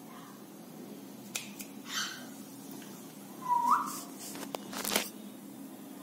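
One short, clear whistle that holds steady and then rises sharply at its end, among a few light clicks and brief rustling bursts.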